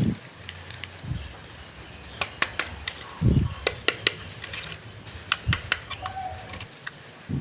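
Handling of toy packaging and a small toy car: a scattered series of sharp clicks and taps, with a few dull thumps about a second apart, over a faint steady hiss.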